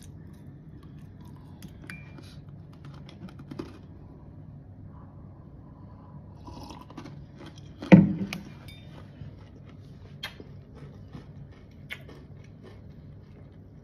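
Close-up eating sounds: chewing with small wet mouth clicks, and sipping from a mug. A single loud thump about eight seconds in stands out above the rest.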